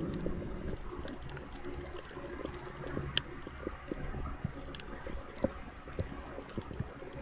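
Underwater sound from a diver's camera on a coral reef: a steady low rumble with scattered irregular clicks and pops.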